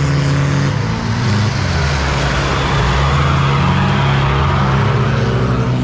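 Off-road 4x4s' engines running hard as the trucks churn through deep mud, with their engine notes shifting in pitch about a second in and the tyres and mud adding a heavy hiss.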